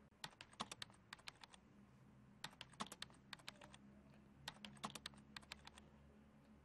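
Typing on a laptop keyboard: three short bursts of quick key clicks with brief pauses between them.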